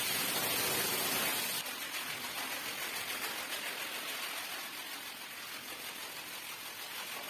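Water from a hose splashing onto a soaked rug. It cuts off suddenly about a second and a half in, and then comes a steady, quieter wet scrubbing as a long-handled brush works the sodden carpet.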